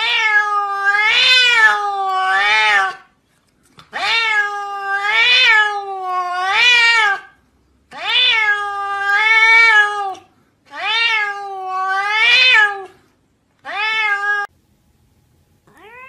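A grey-and-white domestic cat meowing loudly over and over, in runs of two or three meows with short pauses between. Each meow rises and then falls in pitch, and the last meow is a short single one.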